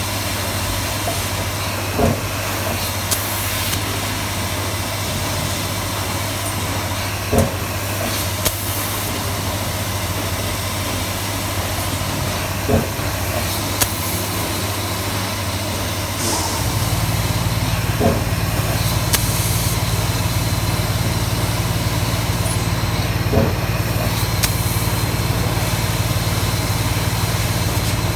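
CNC laser cutting machine running: a steady hum and hiss, with a short sharp click about every five seconds. A deeper, louder hum comes in a little over halfway through.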